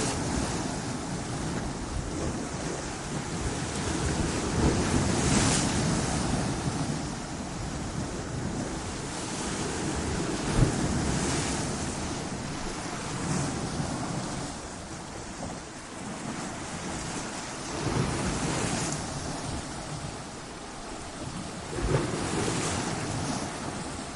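Ocean waves breaking against coastal rocks, the surf swelling and falling back every few seconds, with one sharp splash about ten seconds in.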